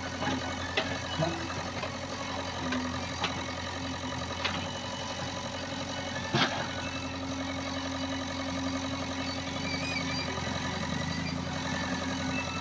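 Diesel engine of a JCB machine running steadily, with several short sharp metal knocks over it, the loudest about six seconds in.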